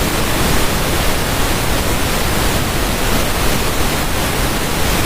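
Steady rushing water, an even hiss with no separate splashes or drips and no change in level.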